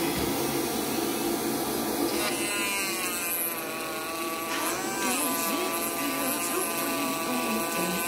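Dremel rotary tool in a plunge-router base, running steadily and cutting into a wooden disc. Its whine dips and rises in pitch a couple of times as the bit takes load.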